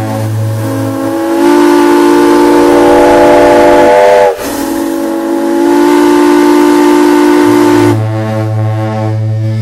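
Steam whistles on steam engines blowing the noon whistle. A steady deep whistle tone gives way about a second and a half in to a louder chord of several higher whistle notes, which break off for an instant near the middle. Near the end the chord stops and the deep tone carries on.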